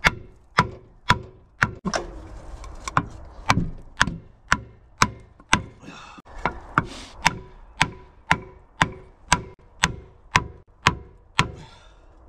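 Hammer blows on a wooden post stood on a seized piston of a Land Rover 200Tdi diesel engine with its head off, struck at a steady two blows a second to drive the stuck piston down.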